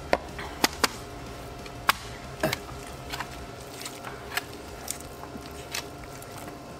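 Table clatter from eating by hand off metal trays: scattered sharp clicks and knocks, the loudest few in the first three seconds, over a steady room hum with faint steady tones.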